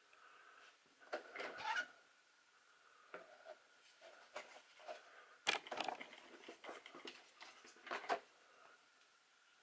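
Handling noise from a 1/10-scale RC truggy being lifted and turned by hand: rustling and light plastic clicks and knocks, with a few sharper knocks about five and a half seconds and eight seconds in.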